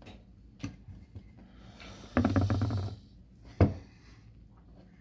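Hand crimping tool being squeezed down hard on a wire connector: a light click, then a rattly, creaking sound lasting under a second, and a sharp snap a moment later.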